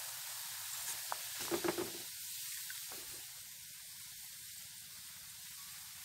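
Sliced onions deep-frying in hot oil in an iron kadai, a steady sizzle. A few light clinks and knocks, from the wire skimmer against the pan, come about one to two seconds in.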